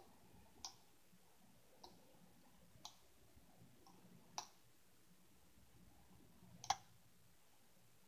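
Faint metallic clicks of a lock pick working the pins of a five-pin Union mortise cylinder: about five separate small clicks spread out. The loudest comes near the end, as the third pin sets.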